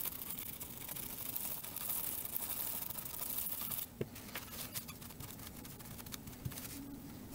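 A brush scrubbing a corroded keyboard circuit board, a fine rapid scratching that stops about four seconds in, followed by a few faint ticks of handling.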